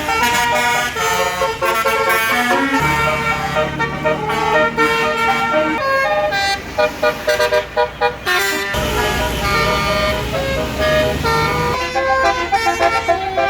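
Basuri multi-tone telolet bus horn playing melodic note sequences, with a run of short staccato toots in the middle. A bus engine's low rumble runs underneath from about three seconds in.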